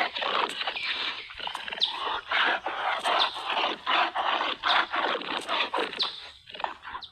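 A played-back recording of an animal call, presented as the sound of an ankylosaurus: a rapid series of short squeaky, yelping calls that cuts off suddenly at the end.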